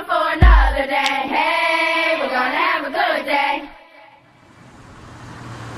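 Song with a group of voices singing over a thumping beat, which ends about three and a half seconds in. Steady outdoor background noise with a low hum then fades up.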